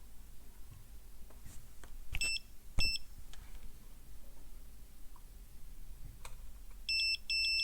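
Digital multimeter's continuity beeper: two short beeps with probe clicks a little past two seconds in, then a brief beep and a steady tone near the end as the probes find a short on a MOSFET gate.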